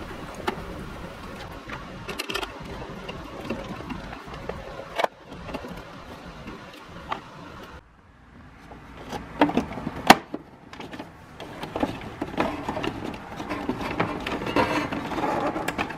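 Screwdriver work on a Keurig B40 coffee maker's plastic housing as the Phillips screws holding its base are backed out: uneven scraping and rattling with sharp plastic clicks, the loudest about ten seconds in.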